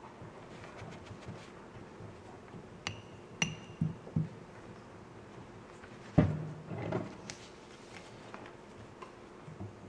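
Items knocked and set down on a tabletop: two short, high-ringing clinks like a ceramic or glass dish about three seconds in, then a few soft knocks and a louder dull thump after about six seconds.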